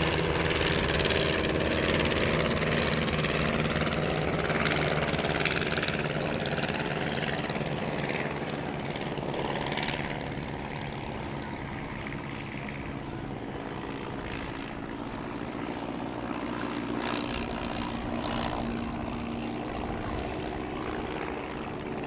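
Piston engines of replica SE5A biplanes droning in a flypast. Louder for the first ten seconds or so, then fading to a lower, steady drone as they draw away.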